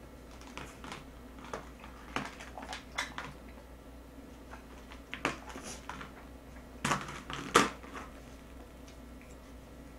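Close-up eating sounds: scattered short crunches and clicks of chewing and chopsticks on a rice bowl, the loudest two about seven seconds in.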